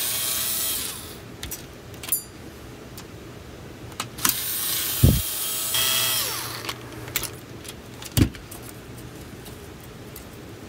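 Clicks and knocks of plastic parts of a cordless phone base being handled and pried at, with two short spells of high whirring from a small motor, the pitch sliding as it runs. A dull thump about five seconds in and a sharp knock near the end.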